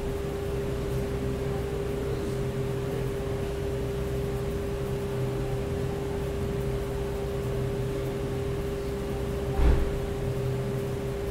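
A steady mechanical hum with one constant mid-pitched tone over a lower drone, and a single dull thump near the end.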